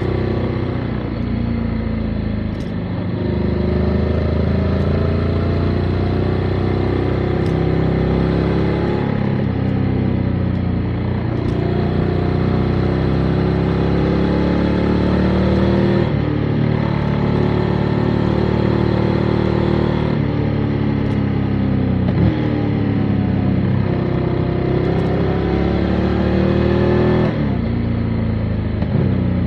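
Motorcycle engine running while riding, its pitch climbing under acceleration and dropping sharply at several gear changes.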